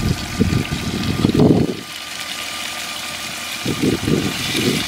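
Pieces of raw duck meat dropped by hand into hot oil in an aluminium pot, sizzling as they start to fry. A loud, irregular low rumble sits under it, strongest in the first two seconds and again near the end.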